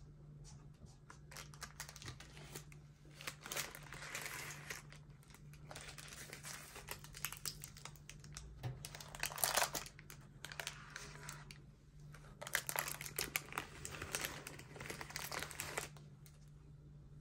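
Baking parchment crinkling in irregular rustles as it is peeled away from a freshly baked chocolate sponge, with the loudest rustles a little past halfway and again near the end.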